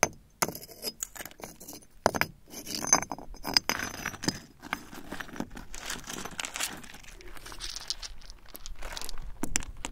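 Pieces of glassy copper slag clinking and crunching: sharp clicks with a bright ringing edge in the first few seconds, then a denser run of gritty crunches.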